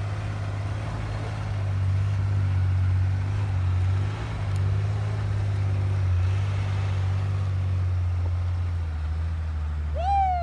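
Truck engine running steadily under load while pulling a stuck truck out of deep snow, its note dropping slightly near the end.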